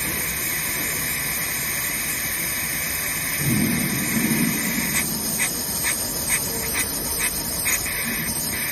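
A laser stent-cutting machine running with a steady hiss. A low rumble lasting about a second comes in about three and a half seconds in, and short ticks follow about twice a second from about five seconds on.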